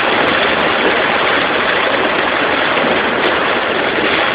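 Heavy rain beating on a car, heard from inside the cabin, mixed with tyres running through water on a flooded road: a loud, steady hiss.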